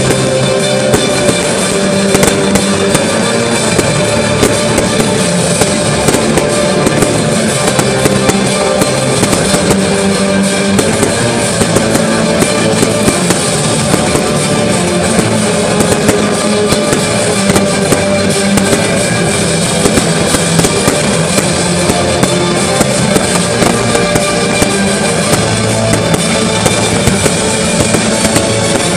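Many aerial fireworks bursting and crackling in quick succession, mixed with loud music.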